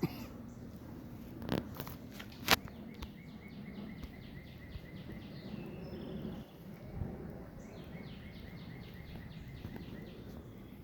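Outdoor background with a high, rhythmic trill of short chirps repeating in long runs, from a small animal somewhere off in the distance. Two sharp clacks about a second and a half and two and a half seconds in, the second the loudest.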